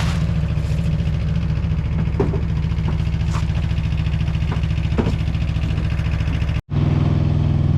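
Engine of a soil-sampling rig running steadily, with a few sharp knocks over it. Near the end the sound drops out for an instant and comes back with a somewhat different engine note.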